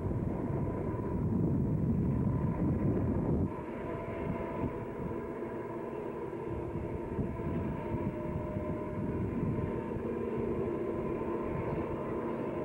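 Southern Pacific diesel freight train climbing the grade at a distance: a low rumble with wind on the microphone, louder for the first three and a half seconds, then a little quieter and steady with a few humming tones.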